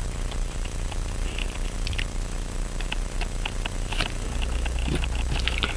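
Scattered faint, light clicks and ticks of small metal tools being handled on a pocket-watch movement, at an irregular pace, over a steady low hum.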